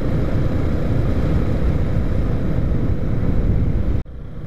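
Motorcycle riding noise: wind buffeting the microphone over a steady low engine rumble. It breaks off suddenly about four seconds in and comes back quieter.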